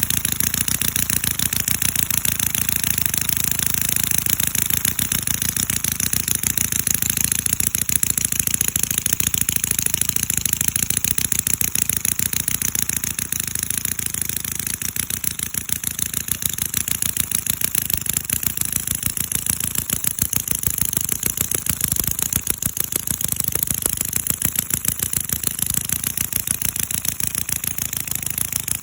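CISON FG-VT157 miniature four-stroke V-twin model engine running steadily, a fast, even stream of firing pulses with no change in speed.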